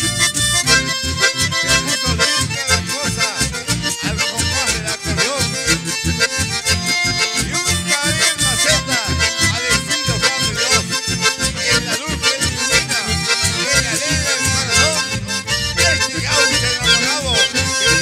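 Live band playing an instrumental passage led by accordions, with a bandoneon and a guitar over a steady bass beat.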